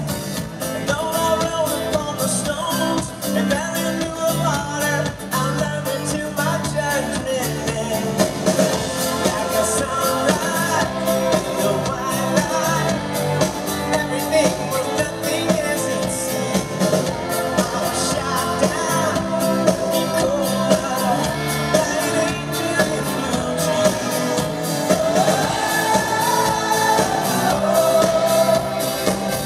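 A live pop-rock band playing: a male lead vocal sung into a microphone over a drum kit and guitars.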